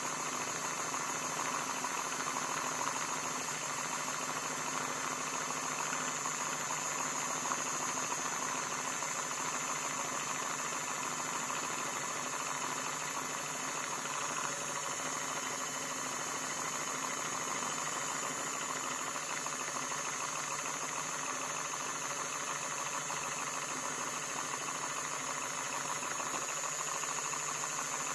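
Laundry machine running with a steady, unchanging hum and a high whine.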